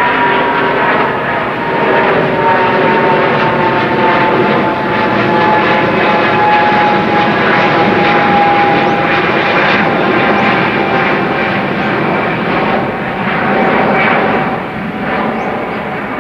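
Boeing 777-200's twin jet engines at takeoff climb power, a steady roar with a high whining tone that slowly falls in pitch as the airliner climbs away.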